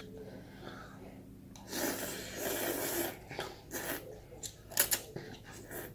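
Spicy noodles slurped in a rush lasting about a second and a half, then a run of wet mouth-smacking chewing noises close to the microphone.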